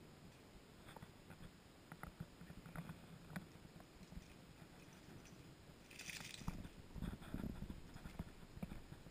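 Two dogs play-wrestling in a plush dog bed: faint scuffling, soft mouthing and light paw taps, with a louder flurry of scuffling and thumps about six seconds in.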